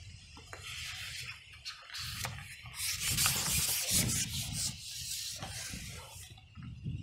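Long carbon fishing pole being pulled back and handled, its sections sliding and rubbing against hands and the platform in a rough scraping that swells, loudest about three to four seconds in.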